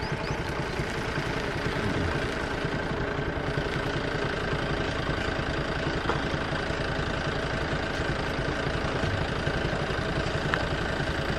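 Auto-rickshaw engine idling steadily, a fast even run of firing pulses.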